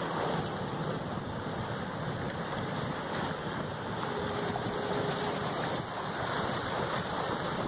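Ocean surf breaking and washing in choppy water, with wind buffeting the microphone. A faint steady tone sounds briefly about halfway through.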